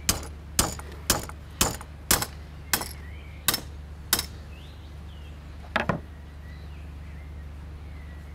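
Sharp metal-on-wood knocks from a flat metal clamp bar and wooden stake being worked at the neck of a sheepskin, about two a second at first, then spacing out, with a last double knock about six seconds in. Faint bird chirps behind.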